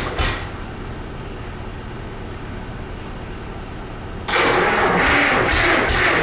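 Electronic background music with a steady beat drops out about a quarter second in and comes back about four seconds later. In the gap, a GM Detroit Diesel 1-71 single-cylinder two-stroke diesel engine is heard.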